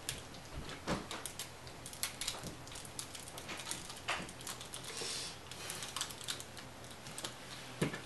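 Small plastic clicks and snaps from the joints and panels of a Terrorcon Cliffjumper Transformers figure being twisted by hand into car mode, with a brief scrape about five seconds in and a louder knock near the end.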